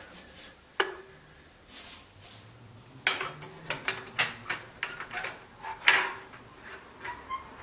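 Clicks, knocks and light metallic clatter of a flexible corrugated metal pattern pipe being bent and pushed into place against a motorcycle engine and frame. A single sharp click comes about a second in, then an irregular run of knocks from about three seconds in, the loudest near six seconds.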